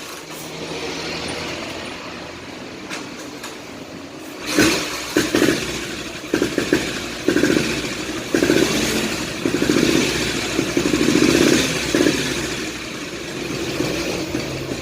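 1964 AJS Model 14 CSR's single-cylinder four-stroke engine running steadily at first, then from about four and a half seconds in revved in a string of short throttle blips, about one a second. It runs smoothly after standing unused for a month.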